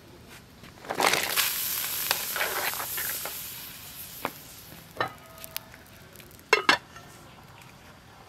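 Pumpkin pieces tipped into a pot of boiling water set off a loud hissing splash about a second in, which fades over the next couple of seconds. A few light knocks follow, then the metal pot lid is set on with two sharp clinks near the end.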